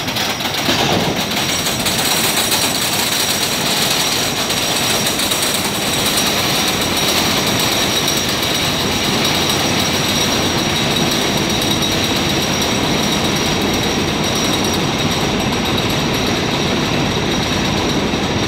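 Wooden roller coaster train being pulled up the lift hill, its lift mechanism and wheels making a steady, rapid clatter.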